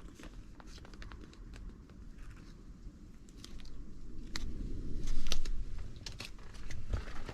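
Crunchy corn nuggets being tipped out of their packet into a plastic food pouch: scattered light clicks and rattles with rustling packaging, busiest about five seconds in.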